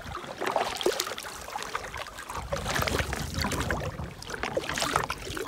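Canoe being paddled across open lake water: paddles splashing and water running along the hull, with a low rumble coming in about two seconds in.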